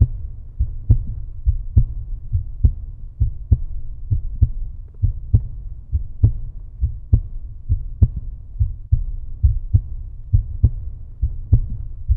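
End-screen soundtrack: a steady pulse of deep, heavy thumps, a little more than one a second, over a low rumble.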